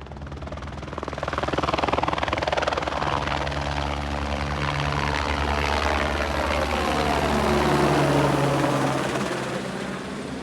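Helicopter flying close by, its rotor blades beating steadily over the engine's whine. It grows louder about two seconds in, swells again to its loudest near the end, then starts to fade.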